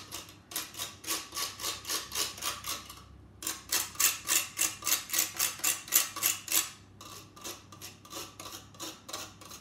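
Lemon zested on a stainless box grater: quick, even rasping strokes, about three a second, with a short pause about three seconds in. From about seven seconds in, lighter, irregular scraping as the zest is cleared from the grater with a small utensil.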